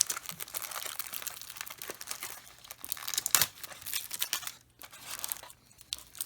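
Packaging of a model train kit being handled and opened: continuous crinkling and rustling, with one sharper, louder crackle about three and a half seconds in.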